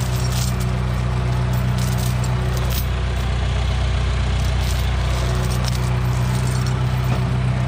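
John Deere crawler dozer's diesel engine running steadily, with logging chain clinking and rattling now and then as it is handled.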